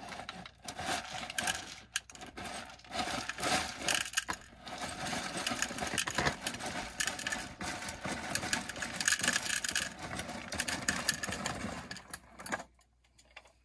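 Homemade hand-cranked cat feeder, its dispenser turned by a 16mm film reel crank, with dry cat kibble rattling and clattering down into a bowl. Steady for about twelve seconds, then it stops shortly before the end.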